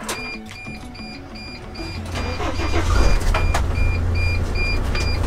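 Van's engine cranking and catching about two seconds in, then running steadily, under a vehicle warning chime dinging evenly about two to three times a second.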